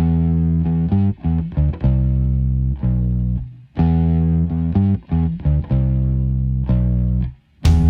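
Background music led by guitar with bass, played in sustained note phrases with short breaks. Sharper strummed attacks come in near the end.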